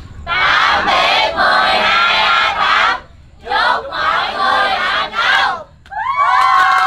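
A large group of students shouting a chant together: two long shouted bursts, then one long held cheer near the end.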